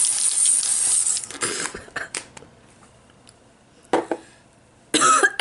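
Aerosol can of airbrush foundation spraying: a steady hiss for about a second and a half, then a few short spurts. A short breathy burst comes about four seconds in, and a brief vocal sound near the end.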